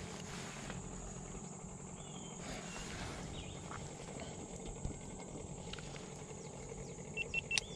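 Steady high-pitched insect drone from the riverbank vegetation, with a few short bird chirps over it and a handful of sharp clicks near the end.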